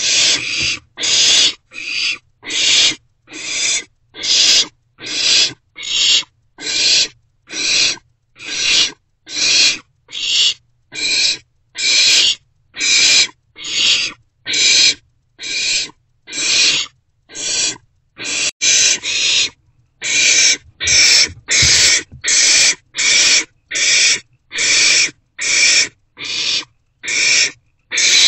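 Barn owlets giving their rasping, hiss-like food-begging calls, one after another about three every two seconds.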